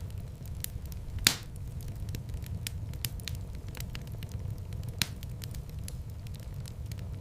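Fireplace fire crackling over a steady low rumble of the flames, with scattered sharp snaps and two louder pops, one about a second in and another about five seconds in.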